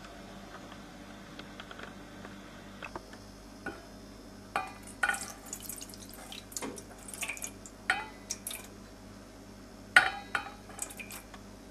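Crockery clinking and knocking: after a quiet start, a string of irregular sharp clinks about three seconds in, the louder ones ringing briefly.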